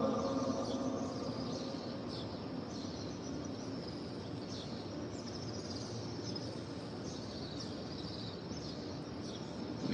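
Faint steady open-air ambience with scattered short, high chirps of small birds. The echo of the amplified prayer recitation dies away over the first second.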